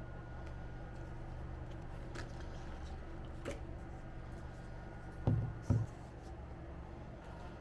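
Quiet room tone with a steady low hum, a few faint clicks, and two soft thumps in quick succession about five seconds in, like objects being handled and set down.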